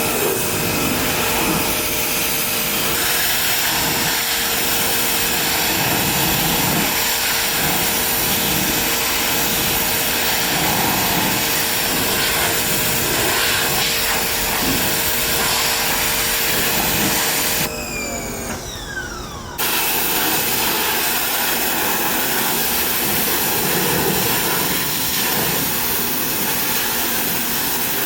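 Electric pressure washer (Giraffe Tools Pressure Washer+) spraying a steady jet of water, with its motor's whine running beneath the rush. About eighteen seconds in the spray stops and the motor's pitch falls away, then about two seconds later the spray starts again.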